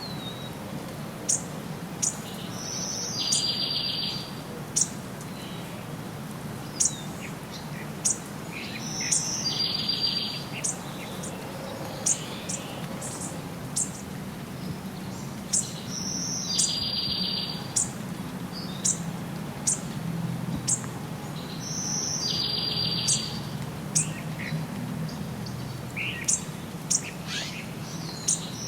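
Songbirds chirping with many short, high calls. One bird repeats a song phrase about every six or seven seconds, a high note followed by a buzzy trill, over a steady low background rumble.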